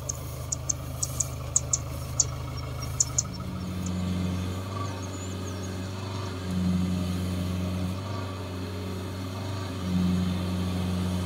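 Diesel engine of a Kubota DC60 combine harvester running while the machine is bogged in mud. Its note swells under load three times. A few sharp ticks come in the first three seconds.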